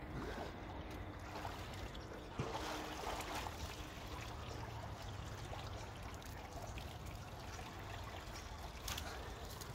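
Pond water splashing and running off a swimmer as he climbs out onto a wooden jetty, with a sharp knock against the planks about two and a half seconds in.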